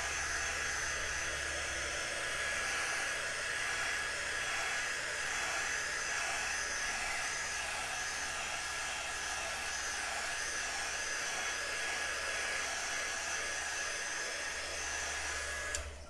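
Handheld craft heat tool blowing steadily with a faint high whine, drying freshly applied chalk paste on a wooden piece; it is switched off just before the end.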